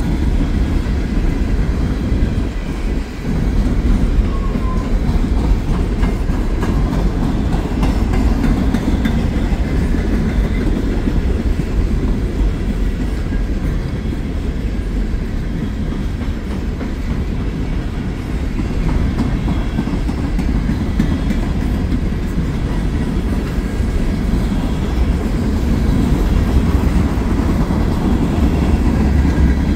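Norfolk Southern coal train's hopper cars rolling past close by: a steady, low rumble of steel wheels on the rails.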